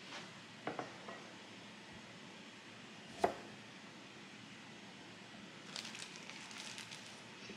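Knife cutting limes on a wooden cutting board: a few soft knocks in the first second, then one sharp knock of the blade meeting the board about three seconds in. Near the end a plastic bag crinkles as it is handled.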